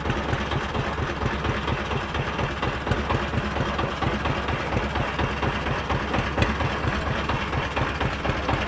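Engine idling with a steady, rapid low beat.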